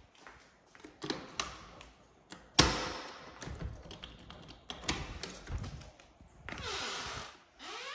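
Clicks and knocks of a back door's deadbolt and knob being worked as the door is unlocked and opened, the loudest a sharp thud about two and a half seconds in. A short rush of noise comes near the end as the door swings open.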